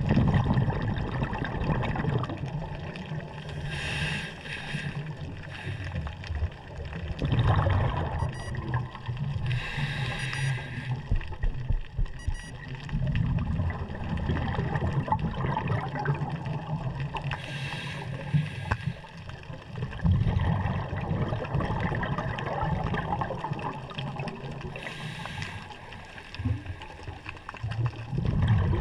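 Underwater sound heard through a camera housing: a constant low rumble of water moving, broken four times, about every six to eight seconds, by a second-long hissing rush of scuba exhaust bubbles as the diver breathes out.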